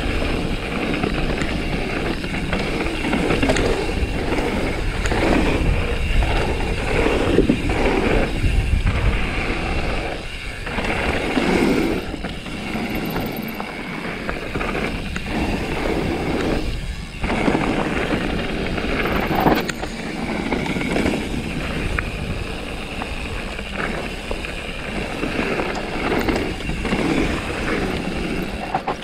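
Mountain bike ridden fast down a dirt trail: a continuous rush of tyres over dirt and stones with rattling from the bike, rising and falling with the ground and dropping briefly a few times.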